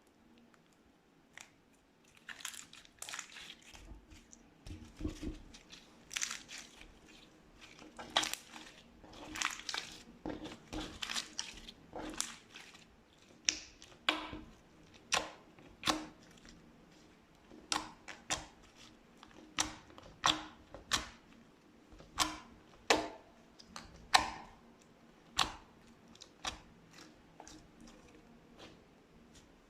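Slime being squeezed and pressed by hand, making sticky squishing and sharp clicking pops. From about halfway the pops come in an even run of roughly one a second, then thin out near the end.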